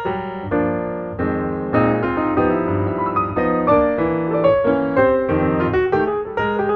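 Background piano music: a steady run of piano notes and chords.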